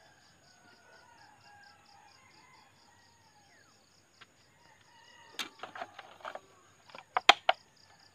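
An insect chirps in a rapid, even pulse, about four times a second, over a thin steady high hum. From about five seconds in there is a run of sharp clicks and knocks, loudest near the end, as hands work in the dry soil setting bait on a hook snare.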